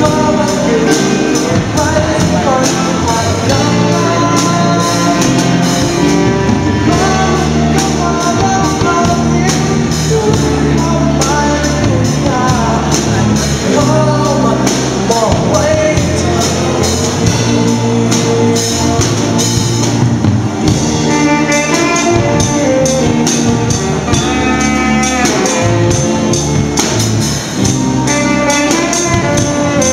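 Live rock band playing amplified: electric guitars, bass guitar and drum kit, with a saxophone and a lead singer. A saxophone melody stands out near the end.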